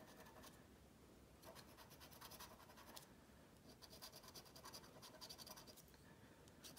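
A coin scraping the coating off a scratch-off lottery ticket in quick, faint, repeated strokes.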